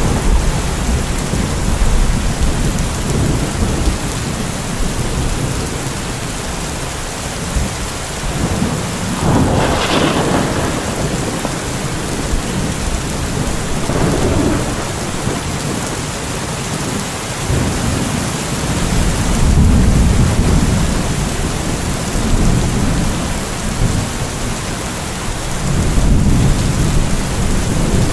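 Thunderstorm: steady heavy rain hissing, with thunder rumbling low several times and a sharper, brighter peal about ten seconds in.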